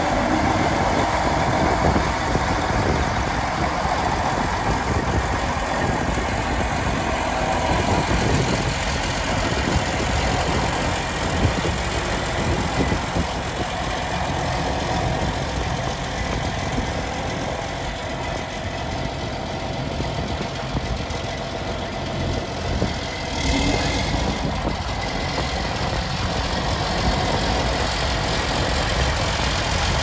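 Versatile 435 four-wheel-drive tractor's Cummins diesel engine idling steadily.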